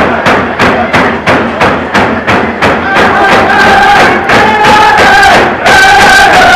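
Tlicho (Dogrib) hand drums beaten together by a line of drummers in a steady beat of about three strikes a second. About three seconds in, voices join in a high, held chant over the drumming.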